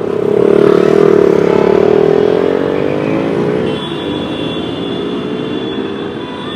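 A motor vehicle's engine passing close by, loudest in the first two seconds, then falling in pitch and fading.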